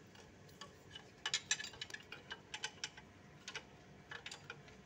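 Faint, irregular light clicks and taps in small clusters, from hands handling the engine's crankshaft pulley beside the timing pointer.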